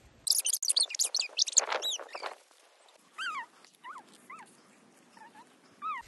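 High-pitched animal whimpering calls, each one falling in pitch: a busy flurry in the first two seconds, then single calls about every half second.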